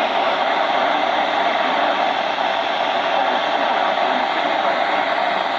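Steady hiss of radio static from a weather radio receiver, with a faint steady tone running under it.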